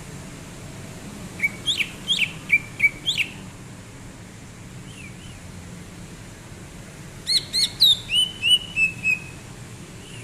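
Greater green leafbird (cucak ijo) singing two quick phrases of sharp, whistled chirps, one about a second and a half in and another around seven seconds in, over steady low background noise.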